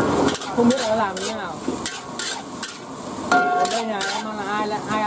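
Metal ladle scraping and knocking against a steel wok as fried rice with diced vegetables is stir-fried, with the oil sizzling underneath. The scrapes come irregularly, several a second.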